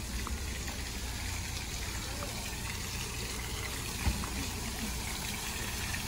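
Steady splashing of a small garden fountain, its jet of water falling back into a stone-edged pond. A single short thump about four seconds in.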